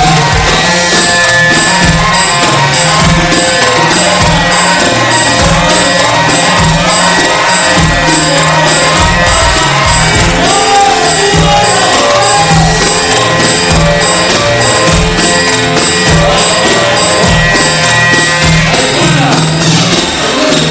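Egyptian mahraganat song played loud, with a steady electronic drum beat and an echo effect on the sound.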